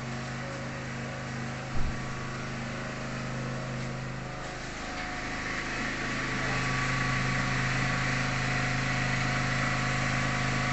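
A steady motor-like hum, with one thump about two seconds in and a hiss that grows louder about five seconds in.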